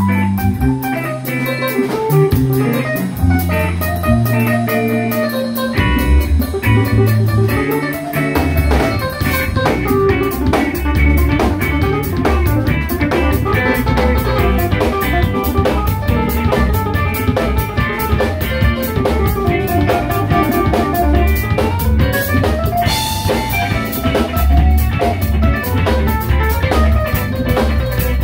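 Live jazz combo playing an up-tempo standard: electric guitar, keyboard, electric bass and drum kit, with the drummer keeping a busy cymbal pattern throughout.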